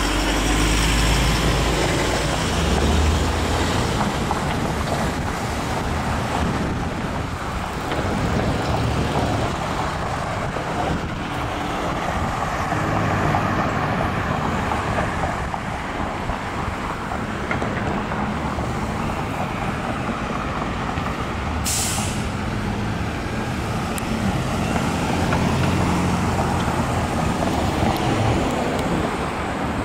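Steady road traffic at an intersection, cars and trucks passing. A truck engine runs close by near the start, and a short sharp hiss comes about two-thirds of the way through.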